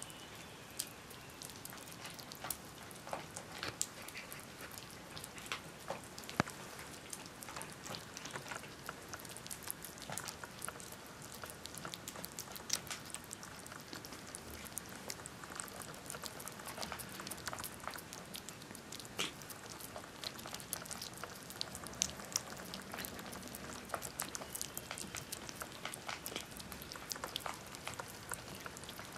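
Kittens lapping and chewing soft wet weaning food from plates: an irregular run of small wet clicks and smacks.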